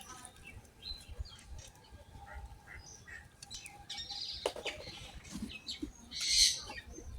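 Small birds chirping in short, scattered calls, with a brief louder burst of noise about six seconds in.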